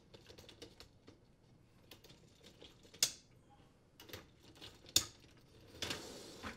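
Dishwasher upper wire dish rack rattling and clicking as it is fitted onto its rails, with two sharp clicks about three and five seconds in. Near the end comes a short sliding noise as the rack rolls into the tub.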